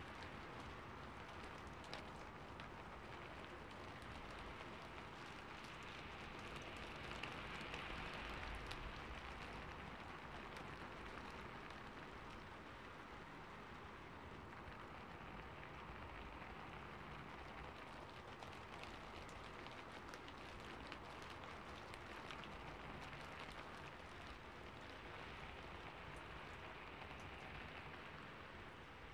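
Rain falling on a rooftop: a faint, steady hiss with scattered drop ticks, swelling a little about seven seconds in and again near the end.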